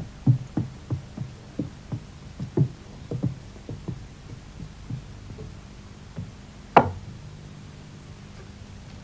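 Footsteps of two people walking, a few steps a second, fading out after about five seconds; then a single sharper knock about seven seconds in, over a low steady hum.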